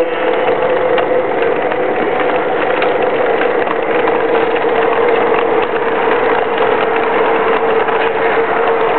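Lionel O-gauge model passenger train rolling past on three-rail track, wheels clattering with many small irregular ticks over a steady droning tone that sinks slightly in pitch.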